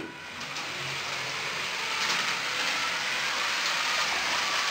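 Two Lego 9V trains running on 9V track: wheels rattling over the rails and motors running give a steady, even rattling hiss. It grows louder over the first couple of seconds as the trains get moving, then holds steady.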